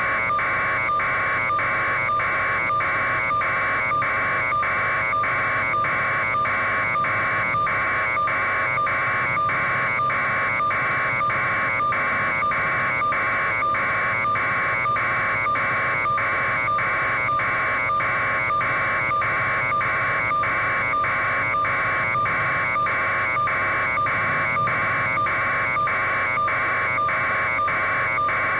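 A steady electronic buzz pulsing evenly about twice a second over a constant hum, unchanging throughout.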